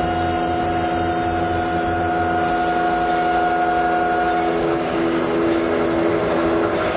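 Indexable-insert face mill on a CNC machining center cutting across a metal block: a steady machining sound with several steady tones over the noise of the cut and chips. About four and a half seconds in, one of the tones drops out and the pitch pattern shifts.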